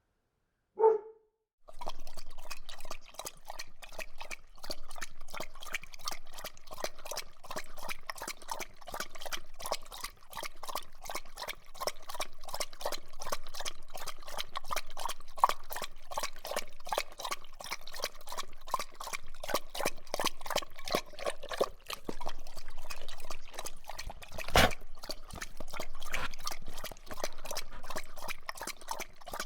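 A single short dog bark, then a dog drinking: a long, fast run of wet lapping sounds. Near the end there is one sharper knock.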